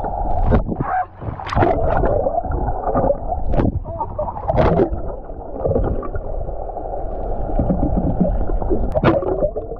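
Water sloshing and gurgling around an action camera dipped in and out of the sea, heard muffled through its housing, with a low rumble and a handful of sharp splashes and knocks as it breaks the surface.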